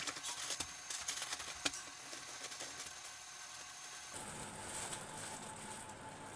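Faint rustling and soft crinkling of cloth and woven bags being handled and pulled out of a packed metal trunk. About four seconds in, a faint steady hum comes in underneath.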